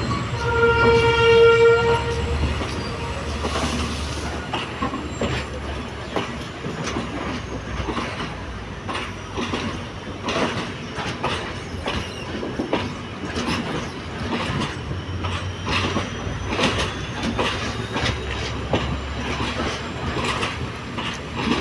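Passenger train carriages rolling past close by: a steady rumble with wheels clacking over the rail joints. Near the start a single train horn blast sounds for about a second and a half.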